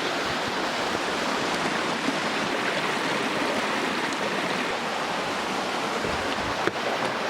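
Steady rush of water from a waterfall and its stream. A single sharp click sounds near the end.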